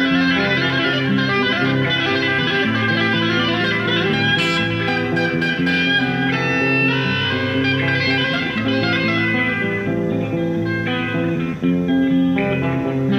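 Instrumental music played live: a melody of steady held notes over sustained lower notes, without a break.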